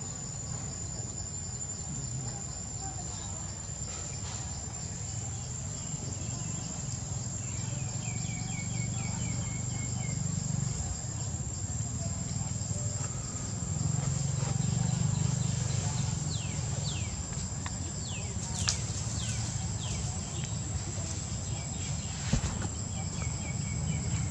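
Forest ambience: a steady high-pitched insect drone, with bird calls over it — a quick run of repeated chirps about a third of the way in and several short falling notes past the middle — above a low rumble. Two sharp clicks come in the second half.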